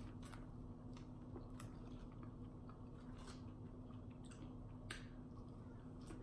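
Close-up mouth sounds of biting into and chewing a fried chicken wing: scattered soft wet smacks and clicks, over a faint steady low hum.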